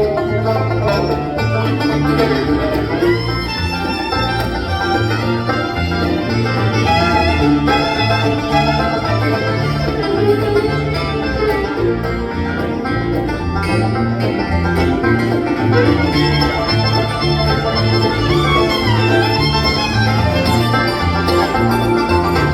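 Bluegrass band playing an instrumental break: banjo and guitar over bass notes stepping on a steady beat, with fiddle lines sliding in pitch.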